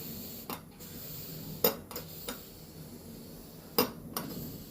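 Metal kitchenware clinking and knocking about six times, short sharp strikes with a brief ring: a steel pressure cooker and its lid being handled before opening.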